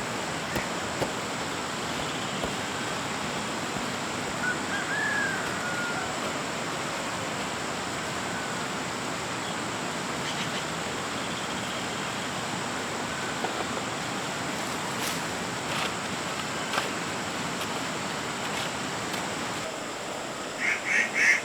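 Steady outdoor rushing noise with a high thin tone and a few faint chirps; near the end a duck quacks about five times in quick succession, the loudest sound here.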